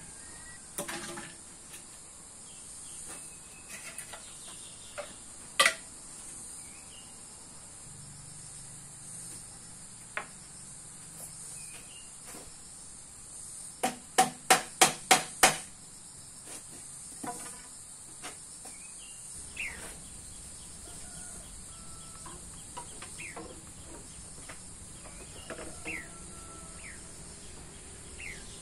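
Outdoor ambience of a steady high-pitched insect drone with scattered short bird chirps. A single sharp knock sounds about six seconds in, and a quick run of six sharp knocks, about four a second, comes around the middle.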